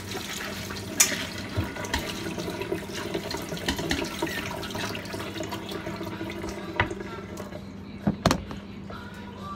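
Tap water running into a metal colander of chopped cabbage in a stainless-steel sink as the leaves are rinsed by hand. There are a few sharp knocks, the loudest two close together near the end.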